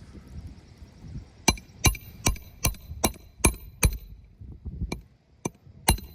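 Hammer driving roofing nails through a shingle: seven quick, ringing blows about two and a half a second, then a few lighter taps and one more hard blow near the end.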